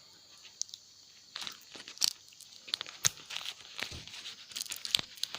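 Crinkling and tearing of tape and plastic wrapping, with scattered small clicks, as salvaged 18650 lithium-ion cells are pulled free of their spot-welded tabs by hand. It starts about a second and a half in.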